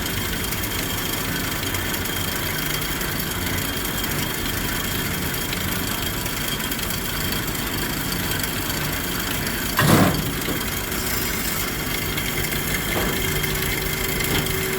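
1997 Amada HA-400W horizontal bandsaw running its full automatic cycle, blade running dry without coolant, making a steady machine noise while cutting wood. A single loud clunk comes about ten seconds in, and a steady tone joins about three seconds later.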